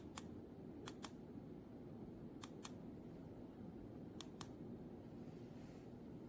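Four faint double clicks, each a quick pair, coming about every one and a half to two seconds over a steady low hum.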